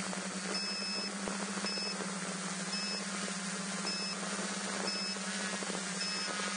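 DJI F550 hexacopter propellers buzzing steadily, like a swarm of flies. A short high beep repeats about once a second over it.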